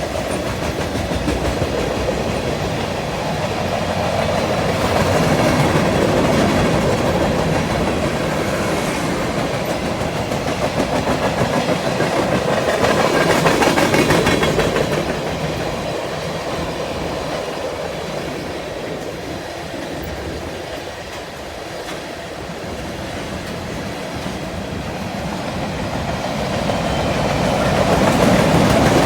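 Long freight train rolling past, its wheels clattering over the rails in a continuous din that swells and eases as it goes by, growing louder again near the end.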